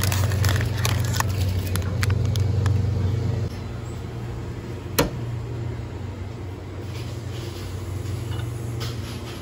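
Low steady hum of a convenience store's refrigerated display cases, with crinkling clicks of a plastic-wrapped lunch box being handled in the first couple of seconds. The hum drops about three and a half seconds in, and a single sharp click comes about five seconds in.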